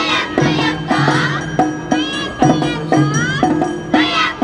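Awa Odori dance music with a steady beat of about two strikes a second, and many high shouted calls rising and falling over it.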